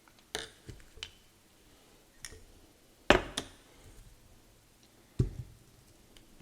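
Scattered sharp clicks and knocks of a small metal petrol lighter and tools being handled, about seven in all, the loudest about three seconds in and another near five seconds in.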